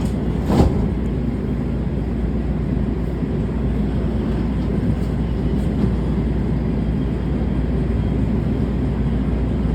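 Metro A Line light-rail train running, heard from inside the car: a steady low rumble, with a single sharp click about half a second in.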